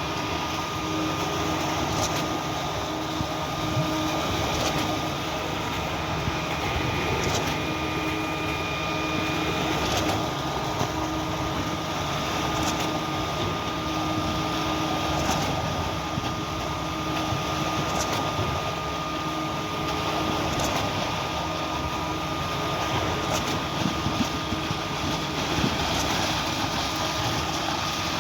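Cifa K41XRZ truck-mounted concrete pump running steadily while pumping concrete, with a short knock about every two and a half seconds.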